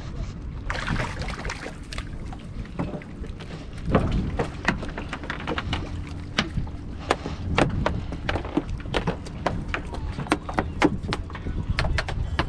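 Wind rumbling on the microphone, with many sharp small clicks and knocks that come several a second from about four seconds in.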